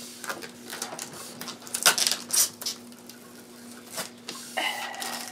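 Clear protective plastic film being peeled off a new monitor, crackling and rustling in several short strokes, the loudest a little under two seconds in, over a steady low hum.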